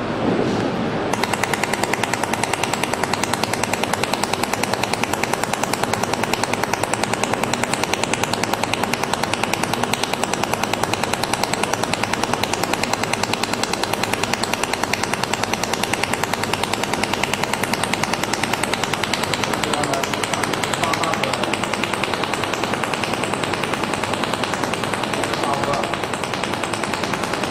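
Automatic welding machine welding stainless steel plate. It starts about a second in with a rapid, evenly pulsed sound that holds steady.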